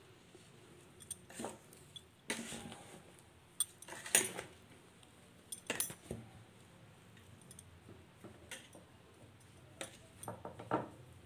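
Chopped raw mango pieces coated in salt and chilli powder being mixed in a steel bowl: irregular scrapes, rustles and knocks against the bowl's metal, a few seconds apart.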